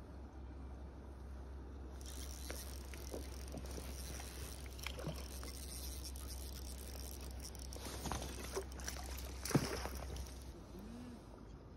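A hooked trout splashing at the surface as it is reeled in, then a landing net swept through the water, the loudest splash about nine and a half seconds in.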